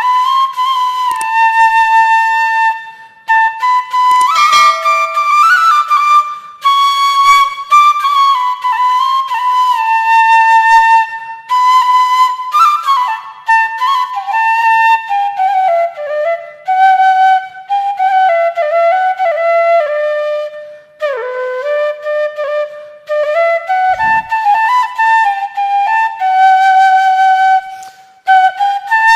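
Background music: a solo flute-like melody played in phrases with short pauses, gliding and ornamented between notes.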